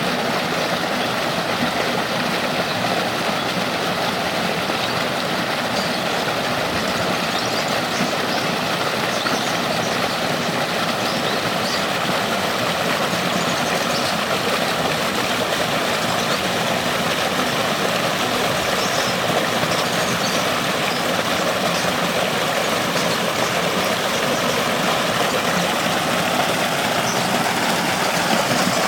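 Creek water rushing, a steady unbroken rush.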